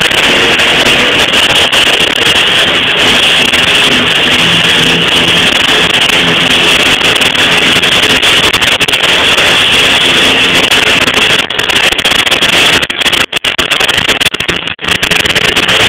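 Aluminum welding arc: a loud, steady hiss that breaks off briefly a few times near the end.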